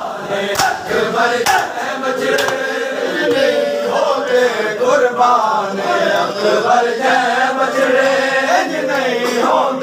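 Crowd of men chanting a mourning noha in unison during matam. Sharp hand slaps of chest-beating land about once a second in the first few seconds, then the chant carries on alone.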